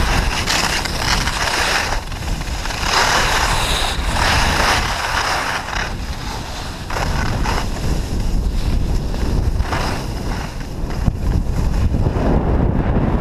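Wind rushing over the camera's microphone while skiing fast downhill, with the hiss and scrape of skis on packed snow swelling and fading through the turns.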